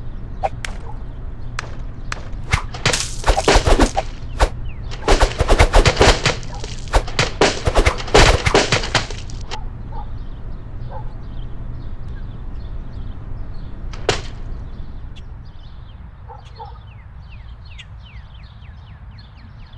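A rapid flurry of sharp impact sounds, several a second for about seven seconds, as clay tomatoes pelt a wooden mannequin. Then faint bird chirps over a steady low hum, with one more sharp hit about two-thirds of the way through.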